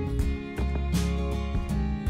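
Background music: an acoustic guitar track with a steady bass.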